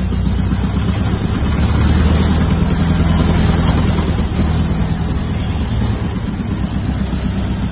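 Rebuilt Lycoming O-235 four-cylinder, air-cooled aircraft engine running steadily on a test stand during its run-up, propeller turning. It gets a little louder about two seconds in and eases off slightly near the end.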